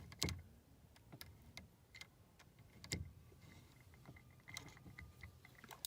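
Faint, scattered clicks and taps from handling a furnace condensate float switch whose float is stuck and will not rise. The sharpest click comes about three seconds in, with a run of small ticks near the end.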